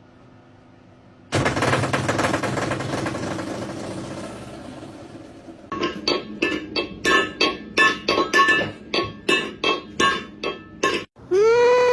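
A sudden crash that rings down over a few seconds, then a quick run of ringing clinks, about three or four a second, and a single cat meow near the end.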